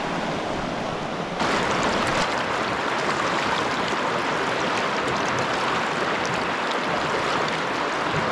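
Rushing water of a small river rapid, a steady noisy rush that suddenly gets louder and brighter about a second and a half in.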